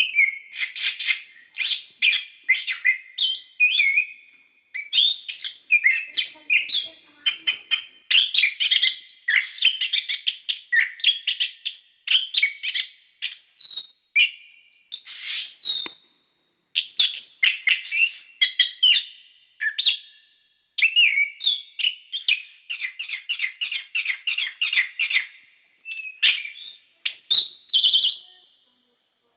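Orange-headed thrush (anis kembang) singing a long, fast, varied song of rapid chattering and whistled notes in quick runs, broken by a few short pauses.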